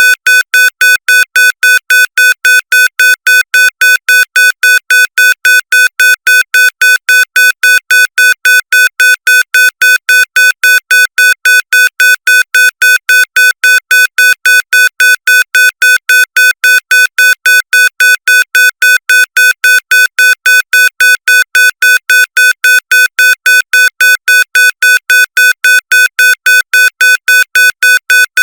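Aircraft cockpit warning alarm beeping fast and evenly, about three beeps a second. Each beep is the same high electronic tone, repeating without change.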